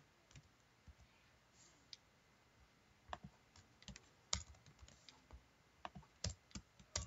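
Computer keyboard keys and mouse clicks, scattered and irregular, sparse at first and more frequent from about three seconds in, as code is edited.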